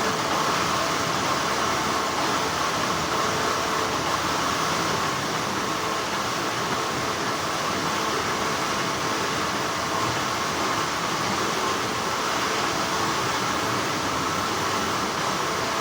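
Steady, continuous hum of textile factory machinery, an even whir with a faint high tone running through it.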